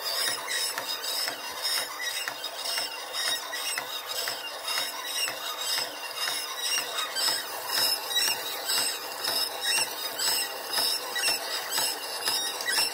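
Unwanted squealing noise from the take-up side of a Reflecta Super 8 / Normal 8 film scanner, repeating in a steady rhythm as the take-up reel turns. It is the sign of a fault in the take-up mechanism.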